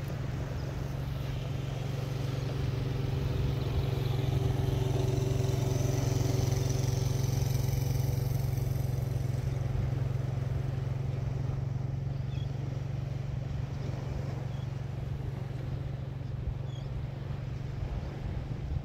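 A four-wheeler (ATV) engine running along the beach, growing louder over the first several seconds and fading away after about nine seconds in, over a steady low rumble.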